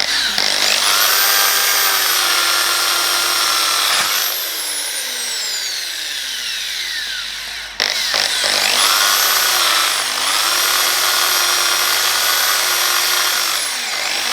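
A 240-volt corded electric drill drilling rivet holes in aluminium sections. Its motor whines up to speed and runs steadily for a few seconds, then winds down with a falling whine. It starts again about halfway through and runs steadily until near the end, sagging briefly once.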